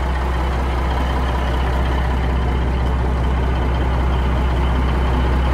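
Cab-over semi truck's diesel engine idling steadily, a deep, even drone.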